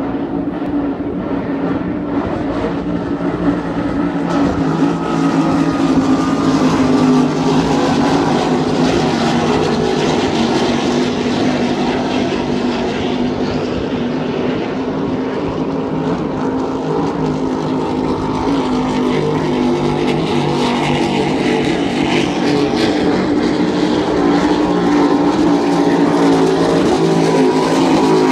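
Racing powerboat engines running hard across the water: a steady, loud drone of several engine notes that swells a little twice.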